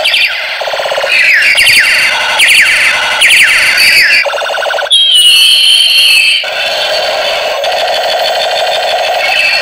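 Battery-operated plastic toy revolver playing its electronic sound effects: loud, siren-like warbling tones with quick sweeping chirps, switching to a different pattern a few times.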